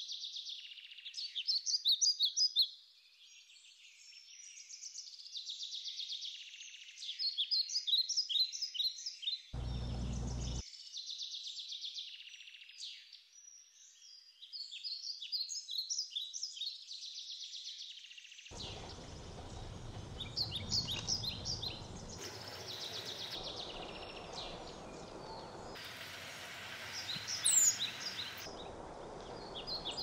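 Small birds chirping: quick runs of short, high, repeated chirps, overlapping and coming in clusters throughout. A brief low rumble comes about a third of the way in, and a steady hiss sets in under the chirping about two-thirds of the way through.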